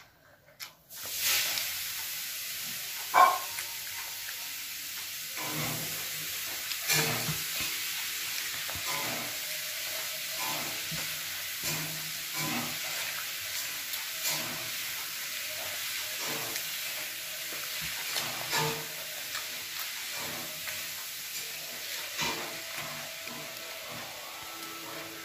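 Close eating sounds: fingers mixing and scooping rice and fish curry on a plate, with chewing, in soft irregular strokes every second or two, and one sharper click about three seconds in. A steady hiss comes in about a second in and runs under it.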